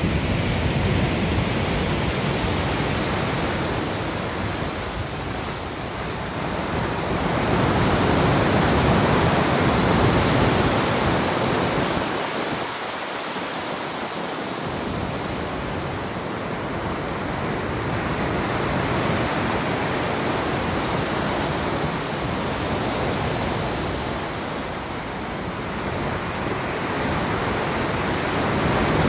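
Sea water rushing and washing along the hull of a moving ship, a continuous noisy rush that slowly swells and eases every several seconds as the swells pass.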